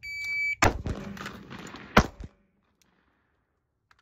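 Shot timer's start beep, about half a second long, then a carbine shot and, about 1.35 s later, a louder pistol shot. The gap between the two shots is the rifle-to-pistol transition time.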